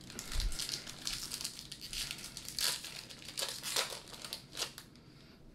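Foil wrapper of a Pokémon trading card booster pack being torn open and crinkled in the hands: a run of irregular crackling rustles that stops about five seconds in.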